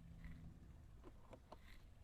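Near silence: low room tone with three faint short clicks a little past a second in.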